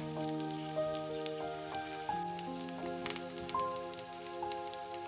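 Sausages sizzling in hot oil in a frying pan, with small scattered crackles. Soft background music with held notes plays over it.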